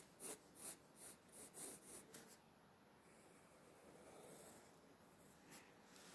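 Pencil drawing on paper: a quick run of about seven short strokes in the first two and a half seconds, then only faint room noise.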